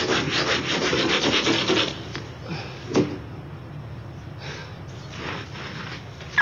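Snow being scraped and brushed off a car in rapid strokes, heard through a hall's loudspeakers. The scraping stops about two seconds in, a single knock follows about a second later, then a few fainter swishes.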